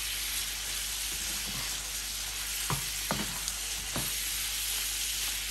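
Chicken breast pieces sizzling steadily in butter and soy sauce in a frying pan while a slotted spatula stirs them. A little past halfway the spatula knocks against the pan three times.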